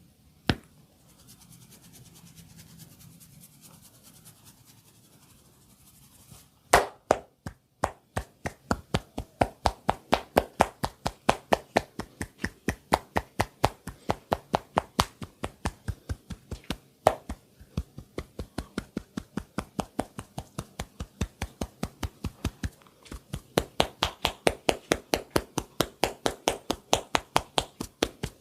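Percussive massage: hands slapping the body in quick, even strokes. There is one sharp slap just after the start, then a few quiet seconds, then a steady rhythm of about three slaps a second that pauses briefly about three-quarters of the way through.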